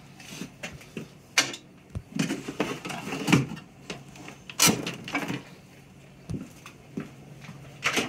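Scattered sharp knocks and clunks of saw parts and tools being handled and set down, about half a dozen separate hits, over a low steady hum.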